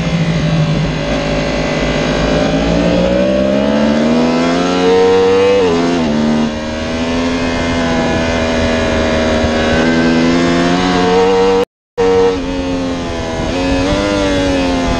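Yamaha R1 superbike's crossplane inline-four engine under hard acceleration at race pace, heard from onboard. Revs climb, dip sharply at an upshift about five and a half seconds in, then climb again. They fall back as the bike slows into a corner and downshifts, and pick up once more near the end. The sound cuts out completely for a moment about twelve seconds in.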